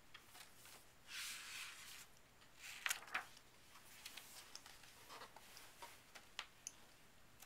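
Faint rustling of picture-book pages being turned by hand, with a few light clicks and taps from the paper and hands.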